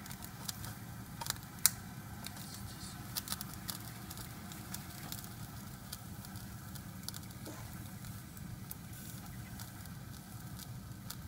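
Toy steam engine's boiler being heated over its burner: scattered small crackles and ticks, most of them in the first few seconds, over a steady low hum.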